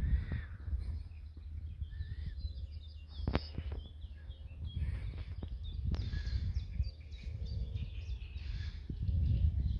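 Small birds singing and chirping over a low, uneven rumble, with a sharp click about three seconds in and another near six seconds.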